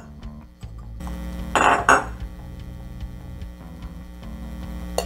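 Glass bottle and metal bar tools handled on a bar top: a brief rattling clink about one and a half seconds in and a sharp click near the end, over a steady low hum.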